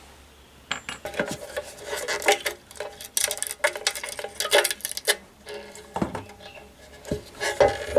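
Metal pieces clinking and clattering against each other as they are handled, in quick irregular clusters for several seconds, then a few more clinks near the end.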